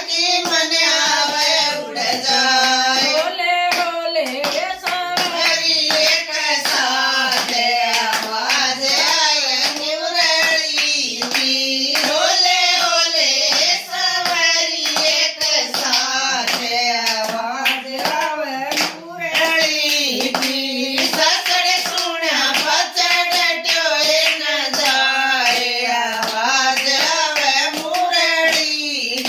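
A Haryanvi devotional bhajan sung as a wavering, ornamented melody, with hand-clapping keeping time throughout.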